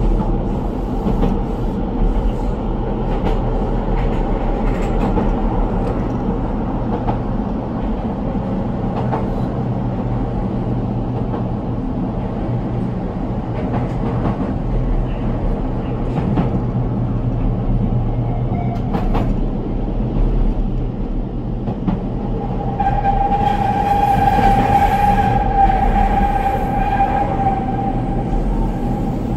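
Electric train running on its rails: a steady rumble throughout, with a level, high squeal that sets in about three-quarters of the way through and lasts about five seconds.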